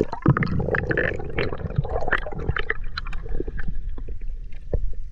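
Muffled underwater gurgling and bubbling heard through a submerged action camera, with many sharp little clicks.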